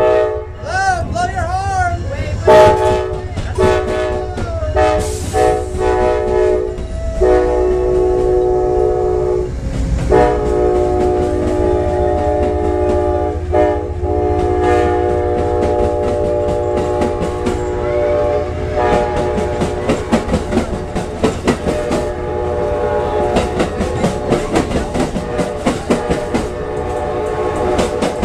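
Amtrak diesel locomotive's air horn sounding in long blasts with a few short breaks as the passenger train crawls across the diamond. From about two-thirds of the way through, the wheels of the passing passenger cars clack steadily over the crossing's rail joints.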